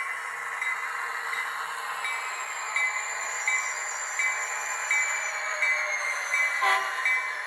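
DCC sound decoder in a ScaleTrains SD40-2 model diesel locomotive playing its engine sound as the train is brought to a halt. A short ping repeats about every three-quarters of a second, a high whine slowly falls in pitch, and there is one sharp clank near the end.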